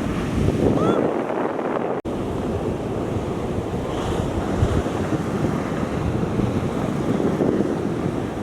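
Ocean surf breaking, with wind buffeting the microphone; a brief dropout about two seconds in.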